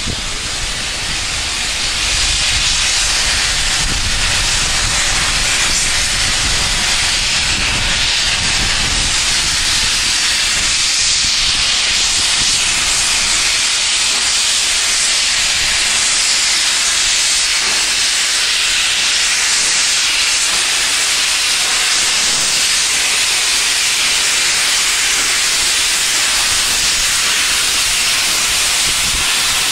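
Steam locomotive letting off steam: a loud, steady hiss with no chuffing rhythm, over some low rumble in the first several seconds.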